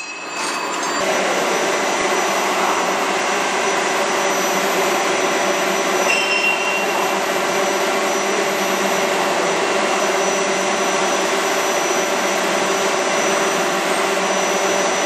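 Steady, loud roar of forge-shop machinery running, with a faint low hum and a thin high whine in it.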